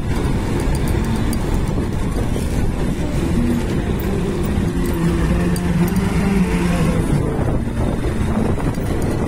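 Wind rushing over a handheld phone microphone while riding a Honda motorcycle at low speed, with its engine and the surrounding traffic mixed in. A steady humming note comes in about three seconds in and fades out around seven seconds.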